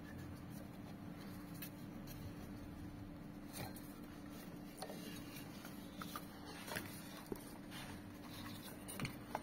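Faint, irregular clicks and taps of a ratchet and a poly-V belt being handled at the belt tensioner, over a steady low hum.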